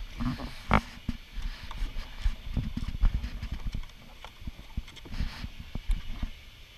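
Muffled, irregular knocks and bumps from a kayak paddle being handled and set down against a plastic kayak. They come thickest in the first few seconds and thin out after about four seconds.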